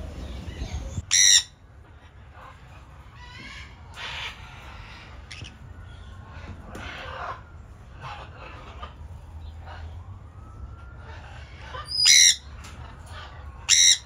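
Parrots squawking: three loud, harsh screeches, one about a second in and two close together near the end, with quieter chattering calls between them.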